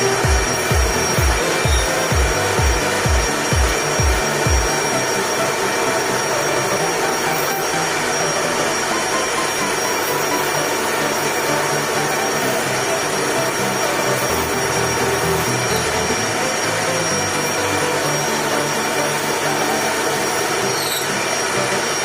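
A motor-driven machine or power tool running steadily with a constant whine. For the first four or five seconds a low thump repeats about three times a second, then stops.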